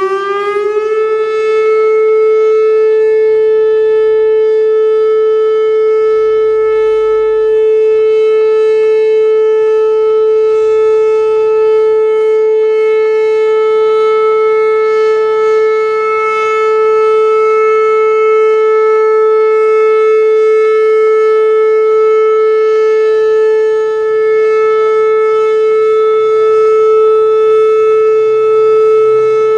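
Whelen WPS 2810 electronic outdoor warning siren sounding a loud steady alert tone: the pitch rises for about a second, then holds level with strong overtones.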